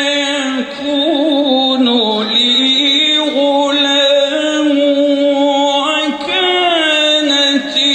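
A man reciting the Quran in Arabic in the melodic chanted style, one voice holding long notes and winding through ornamented turns, with short breaths between phrases, sung into a microphone.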